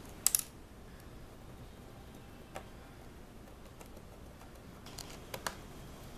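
Sharp plastic clicks and taps as a laptop's plastic upper casing (palmrest) is pressed and fitted onto the chassis: a quick loud cluster just after the start, then single clicks about two and a half seconds in and a few more around five seconds.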